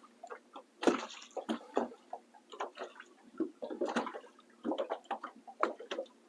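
Small waves lapping and slapping irregularly against a boat's hull.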